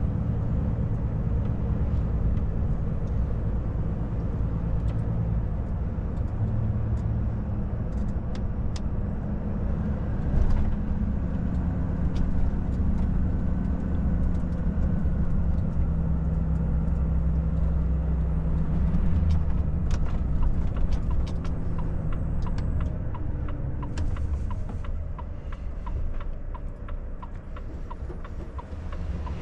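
Volvo FH truck's diesel engine and road noise heard inside the cab, a steady drone while cruising, easing off near the end as the truck slows. A run of light, regular ticks sounds over it in the last several seconds.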